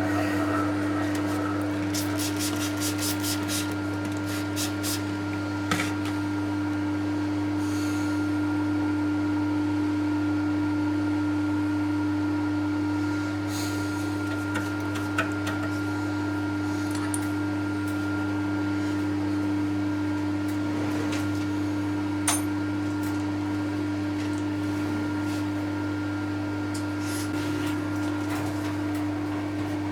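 Milling machine's electric motor running with a steady hum, with a few scattered clicks and knocks and a quick run of light ticks about two seconds in.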